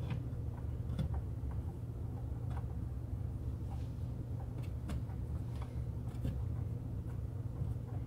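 Scattered light clicks and taps of a hand working at the bed's shipping screws inside a 3D printer's enclosure, over a steady low hum.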